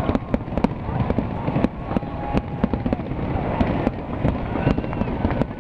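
Many fireworks going off at once: rapid, irregular bangs and pops over a constant crackle.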